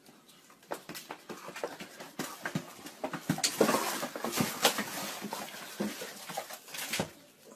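A golden retriever scrabbling against a door or window: an irregular run of knocks, claw clicks and scratching that is densest in the middle and stops suddenly near the end.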